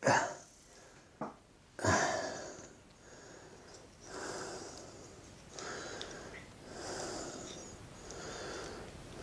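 A man breathing audibly through his nose: a sharper sniff about two seconds in, then slow, regular breaths, about one every second and a quarter.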